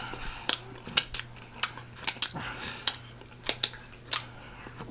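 Close-miked mouth sounds of eating pig feet: about a dozen sharp smacks and clicks at irregular intervals.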